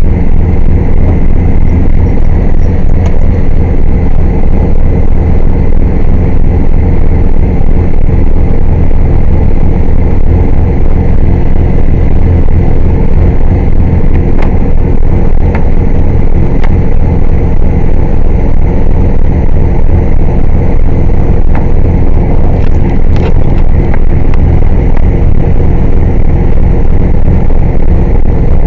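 Air compressor running steadily and loud, a deep engine-like drone with a quick regular pulsing.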